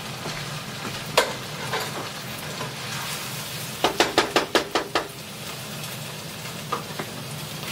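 Ground beef frying with onions and peppers in a pan, a steady sizzle, with a quick run of about seven light knocks around the middle and a couple of single clicks.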